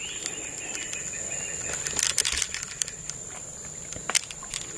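Steady high-pitched drone of forest insects, with a few brief rustles and clicks about two seconds in and again near four seconds.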